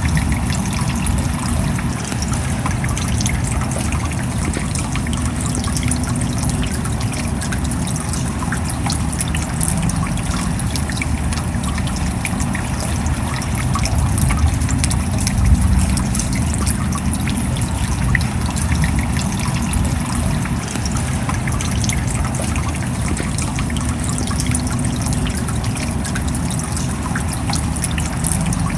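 Steady rain with a dense run of small drop ticks and water trickling, the same all through.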